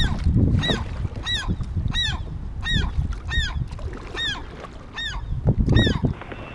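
A short, high squeak repeating about every two-thirds of a second in step with kayak paddling, heard from a Lifetime Tamarack Angler kayak, over the low rumble and splash of the paddle strokes.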